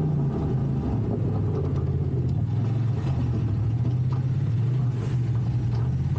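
Engine of a Polaris RZR Turbo side-by-side, stripped of its body, running steadily at low revs as it drives slowly, heard from on board, with its pitch stepping slightly up and down.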